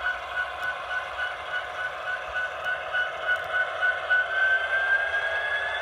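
Sound decoder of a Walthers HO-scale SD70ACe model diesel locomotive playing its prime-mover sound through the model's small speaker: a thin, rhythmic engine throb at about three beats a second. Near the end the pitch rises as the engine revs up.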